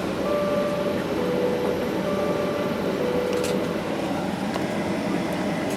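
Steady aircraft cabin noise from the airliner's engines and air ventilation. Over it, in the first few seconds, a faint two-note tone sounds twice, high then low.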